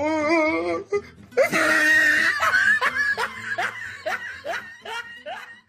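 A person laughing hard: a wavering laugh at first, a loud outburst about one and a half seconds in, then a string of short falling 'ha' bursts that trail off near the end.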